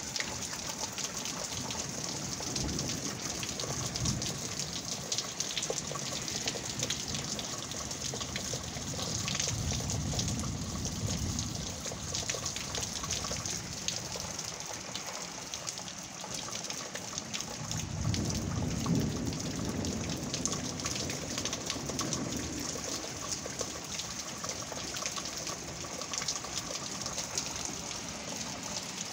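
Steady rain falling, with many close drops ticking. Twice, about ten seconds in and again near nineteen seconds, a low rumble swells and fades under the rain.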